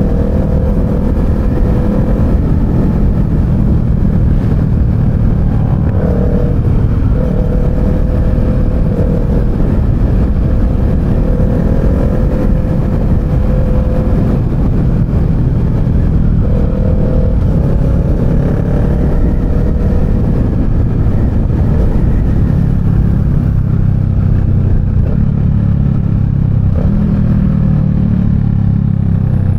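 Kawasaki Z650 parallel-twin engine running steadily at cruising speed. From about three quarters of the way in, a deeper engine rumble grows stronger as the bike slows and shifts down to second gear.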